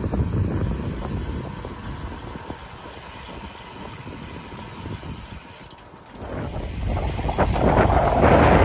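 Wind rushing and buffeting over the microphone of a camera carried on a moving bicycle. It dips briefly about six seconds in, then swells into louder, harsher buffeting near the end.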